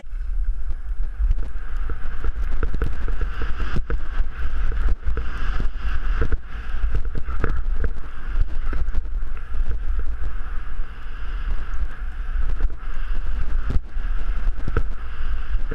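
Wind rushing and buffeting on the microphone of a camera carried by a skier moving fast downhill, a steady low rumble with scattered knocks.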